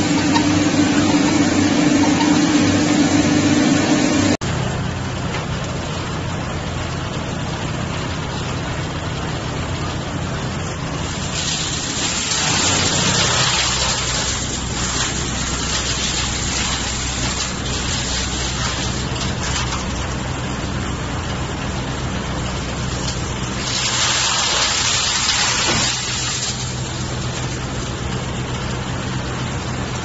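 Wood-processing machinery running. A louder, deeper machine hum cuts off abruptly about four seconds in. An electric-motor-driven mobile wood chipper then runs with a steady low hum, rising twice into a louder rushing hiss, once near the middle and once near the end.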